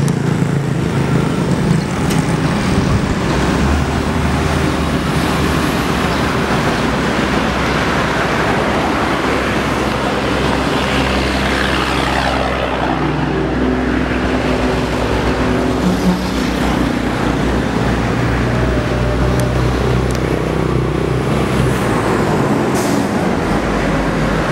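Road traffic passing close to an open cycle rickshaw: a steady rush of engine and tyre noise. A heavy truck's engine drones low for most of it as the truck passes alongside.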